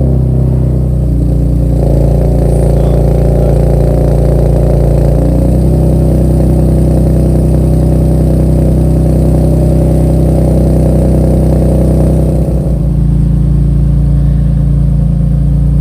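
Nissan 370Z's 3.7-litre V6 idling through a freshly fitted Rev9 exhaust just after start-up. It runs steadily, with its pitch shifting slightly a few times as the idle settles.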